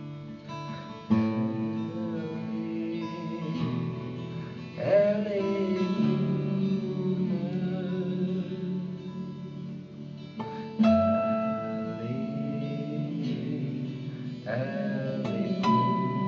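A slow song: a man singing over an acoustic guitar, which strikes a fresh chord every few seconds and lets it ring.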